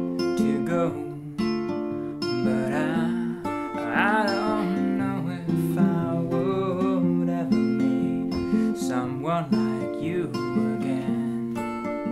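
Acoustic guitar strumming held chords, with a wavering melody line rising above it a few times.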